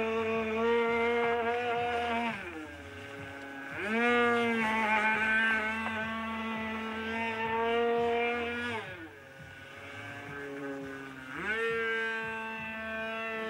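Super Tigre G-51 two-stroke glow engine of an RC Super Chipmunk model plane running at high throttle with a steady high whine. Its note drops off twice and climbs sharply back to full pitch, as on throttle changes or passes during flight.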